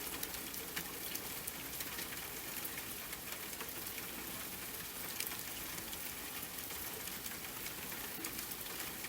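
Steady rain: an even hiss with many small, sharp drop ticks scattered through it, with no music.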